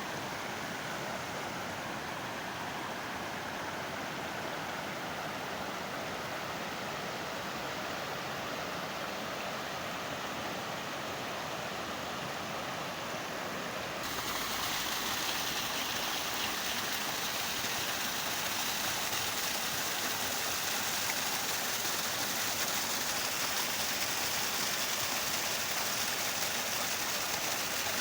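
Steady rush of falling water from a mountain waterfall, growing louder and brighter about halfway through.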